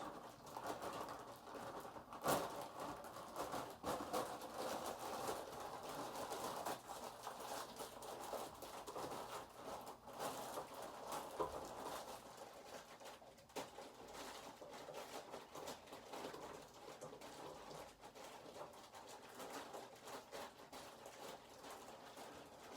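Faint scattered clicks and light knocks of food being handled and dropped into a mixing bowl as blueberries go in, the sharpest click about two seconds in.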